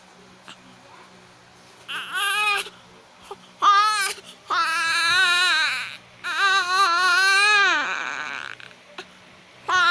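Baby girl crying: after a brief quiet, two short cries about two seconds in, then two long wails with a wavering pitch, and another cry starting near the end.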